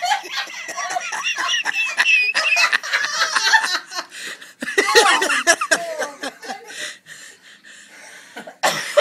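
Several people laughing hard together, with coughing mixed in. The laughter dies down after about seven seconds, and a short loud burst, likely a cough, comes just before the end.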